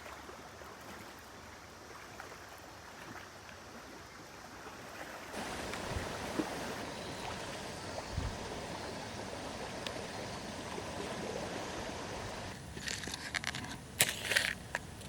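Sea waves washing on the shore, a steady hiss of water. Near the end comes a quick run of sharp clicks and crackles, the loudest thing heard.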